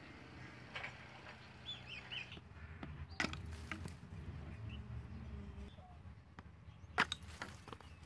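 Outdoor ambience with small birds chirping briefly in the background, and a few sharp knocks, the loudest about three and seven seconds in.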